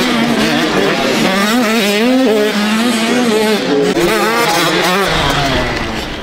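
Motocross dirt bike engines running hard, their pitch rising and falling with the throttle. A deeper rumble joins about five seconds in.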